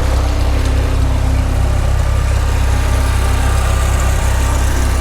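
Farmall Super M tractor's four-cylinder engine idling steadily.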